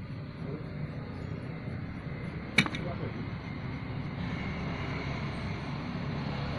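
Steady low rumble, with a single sharp click about two and a half seconds in.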